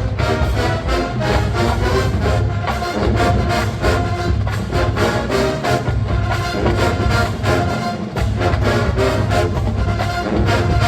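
Marching band playing: brass (trumpets and trombones) over a drumline keeping a steady beat.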